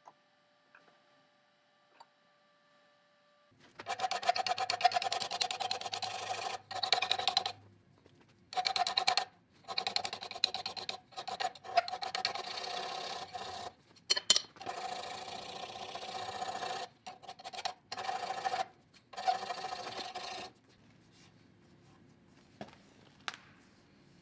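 Hand abrasive work on the steel shaft of an electric motor armature held in a vise: metal rubbing and scraping in stretches of a couple of seconds with short pauses, with a faint ringing from the steel. It starts a few seconds in and stops about three-quarters of the way through.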